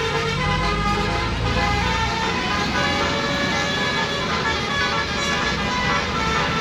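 Basuri bus's telolet musical horn playing a tune of shifting notes, over a low bus engine rumble that fades about two seconds in.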